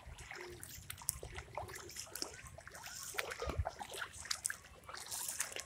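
Feet wading through shallow floodwater, with irregular splashing and sloshing.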